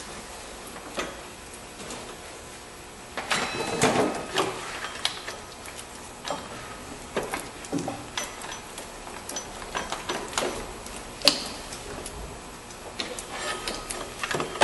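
Rubber serpentine drive belt being worked off the engine's pulleys by hand: irregular rubbing, knocks and clicks of belt and tools against the engine-bay metal, busiest about four seconds in, with one sharp click near eleven seconds.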